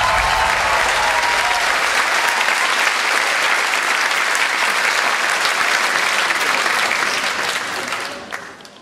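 Audience applauding, with the last notes of the music fading under it at the start; the applause dies away near the end.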